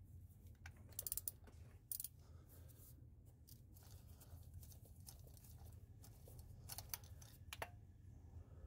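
Near silence, with a few faint clicks of hand tools about one and two seconds in and twice more near the end.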